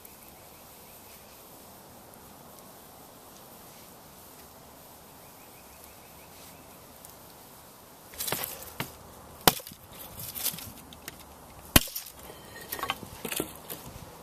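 Quiet steady background for about eight seconds, then a run of sharp wooden cracks and knocks, the two loudest about two seconds apart, with lighter crackling between and after.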